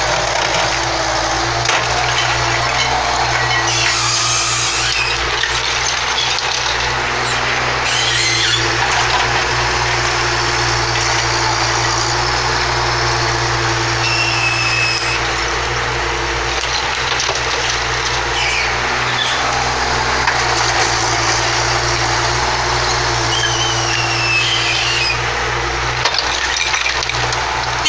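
Diesel engines of mini excavators running steadily under load while broken masonry is scooped and dumped, with cracking and clattering rubble and a few short high squeals of the buckets on concrete.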